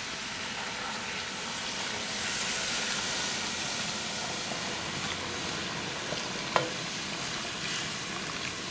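Vegetable broth poured from a jug into a hot cast-iron Dutch oven, hissing and sizzling as it meets the hot pan juices, a little louder from about two to four seconds in. A single short click about six and a half seconds in.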